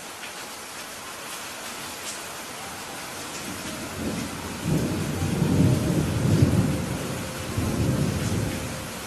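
Steady rain hiss, with a low rumble of thunder swelling in about three and a half seconds in and dying away near the end.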